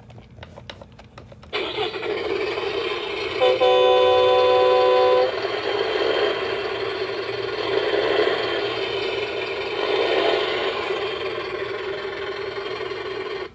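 Toy dump truck's built-in speaker playing an electronic engine sound effect that starts suddenly about a second and a half in. A horn honk sounds over it about two seconds later and lasts under two seconds. The engine sound runs on and cuts off abruptly near the end.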